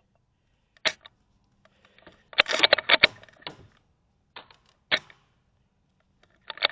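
Sharp mechanical clicks and clattering from an airsoft sniper rifle being handled and aimed. A single click comes about a second in, then a rattling run of clicks. Another single click comes near the five-second mark, and a second clattering run near the end.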